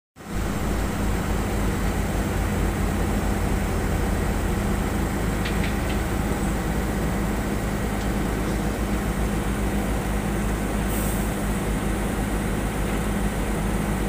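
Heavy diesel construction machinery running steadily at close range: a constant engine drone with a low hum that does not rise or fall.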